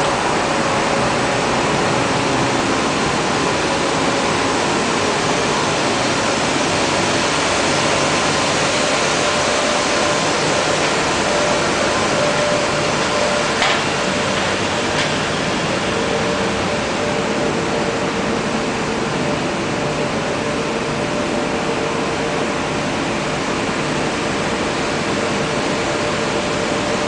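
Stork TM410 six-cylinder diesel engines running steadily in their engine room, producing a loud, dense mechanical din with a few steady whining tones in it.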